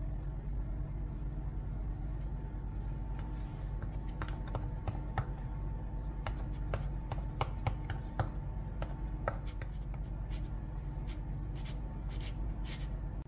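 Metal fork pricking a pastry base in a steel ring: light, sharp taps, irregular, two or three a second, starting about three seconds in, over a steady low hum.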